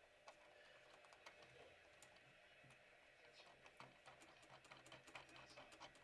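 Faint, irregular small clicks and ticks as the thumb screws of a Corsair H60 CPU cooler's pump block are turned down onto its mounting bracket over the processor.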